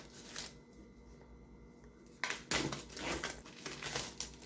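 A cardboard Pokémon Elite Trainer Box being opened by hand: a few short rustling and scraping handling sounds.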